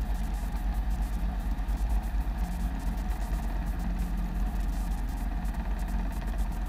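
Robinson R22 helicopter heard from inside the cabin on final approach: a steady drone of piston engine and main rotor, with a fast flutter from the blades.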